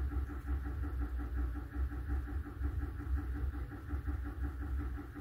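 A steady low hum of a small motor, with a fast, even flutter.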